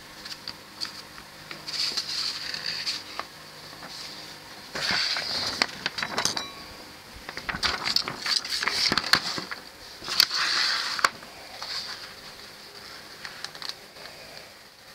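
A paper instruction booklet being handled and its pages turned: bursts of rustling with small sharp clicks and taps, the loudest about two, five to six, eight to nine, and ten to eleven seconds in.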